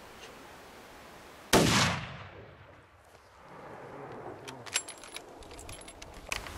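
A single shot from a CZ 550 bolt-action rifle chambered in 7mm Remington Magnum, a sharp loud crack about one and a half seconds in with a short echoing tail, followed later by a few small clicks.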